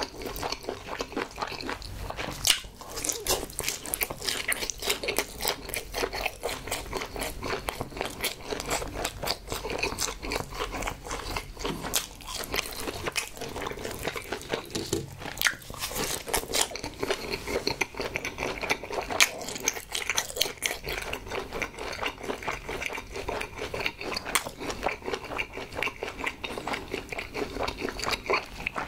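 Close-miked chewing of chewy jokbal (braised pig's trotter), with rapid wet, sticky mouth clicks and smacks.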